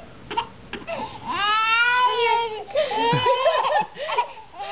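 A toddler crying: a long high wail starting about a second in, then a second, wavering wail.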